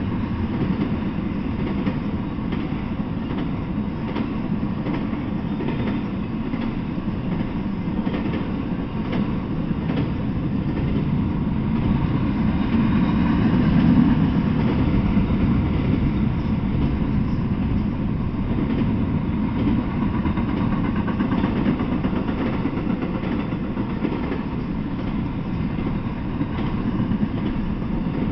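Intermodal freight train's cars rolling past: a steady low rumble of steel wheels on rail with scattered faint clicks, growing a little louder about halfway through.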